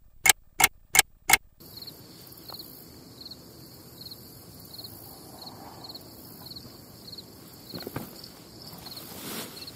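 A clock ticking sound effect, about five sharp ticks roughly three a second. Then a lakeside field with crickets chirping, a high chirp repeating over and over.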